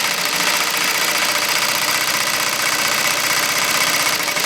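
AtlasUSA AT2150M zigzag industrial sewing machine stitching through leather at steady speed. The needle bar makes a rapid, even clatter.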